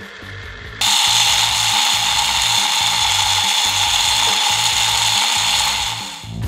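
Small battery-powered DC motor spinning a cut-down fan inside a plastic cup, with thermocol balls rattling against the cup walls: a steady mechanical whirr that gets much louder just under a second in and eases off near the end.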